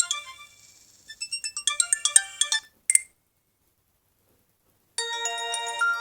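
An Alcatel One Touch OT-810 mobile phone plays its ringtones through its small speaker. A melody of quick notes that die away runs for about three seconds and stops, then after a silent break of about two seconds a different ringtone of held notes and chords starts near the end.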